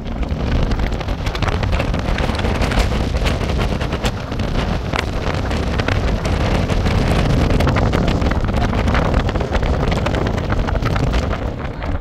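Waterfall roaring: a steady, loud rush of falling water that starts suddenly.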